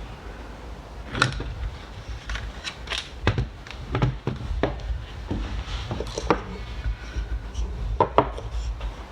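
Pressure washer parts and a hose being handled: a series of irregular knocks, clicks and rubs of hard plastic on a surface.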